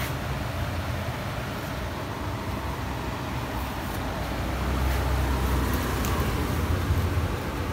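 Steady low background rumble with a few faint clicks and no speech.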